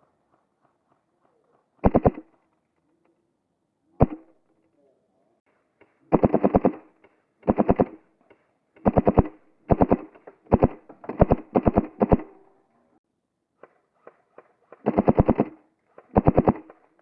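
Airsoft gun firing in short full-auto bursts of rapid, evenly spaced shots. There is one burst about two seconds in and a single shot at about four seconds, then a string of bursts from about six to twelve seconds, and two more near the end.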